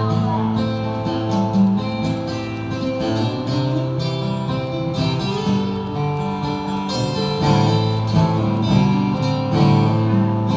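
Acoustic guitar playing live, a picked and strummed instrumental passage without singing.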